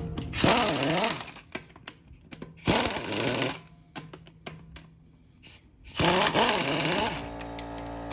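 A power tool whirring in three short bursts of about a second each, its pitch rising and falling within each burst, with small knocks and clicks in between.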